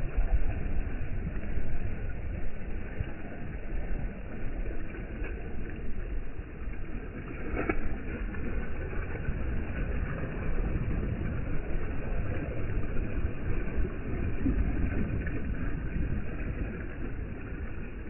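Wind buffeting the microphone over choppy lake waves washing against a rocky jetty: a low, uneven rumble that rises and falls with the gusts.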